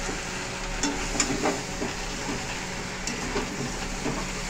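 Chicken and potatoes sizzling in oil in a metal kadai while a spatula stirs them, with a few sharp clicks of the spatula against the pan.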